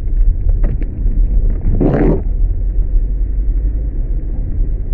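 A car heard from inside the cabin, a steady low rumble of engine and tyres as it drives over soft, waterlogged ground. A few light clicks come in the first second, and a short, louder sound about two seconds in.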